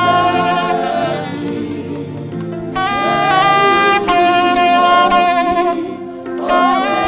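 Saxophone playing a melody in long held notes over a low accompaniment, with brief breaks between phrases.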